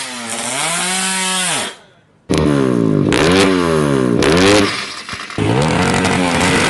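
Drag-racing motorcycle engine revving hard in short bursts, the pitch rising and falling several times, with a brief break about two seconds in.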